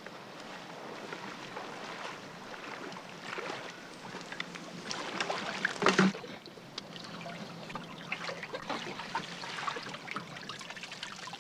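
Water sloshing, splashing and trickling as a long-handled dip net is swept through and lifted out of shallow water by a wading man, with one louder splash about six seconds in.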